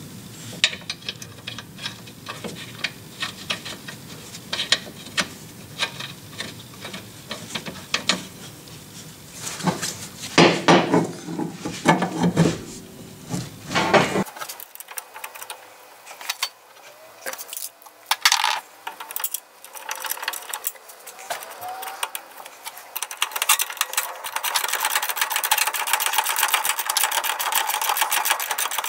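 Irregular metallic clicks and clinks of hand tools while the nut for the new rear shock absorber is fitted. About two thirds of the way in, a small power tool starts running with a steady buzz.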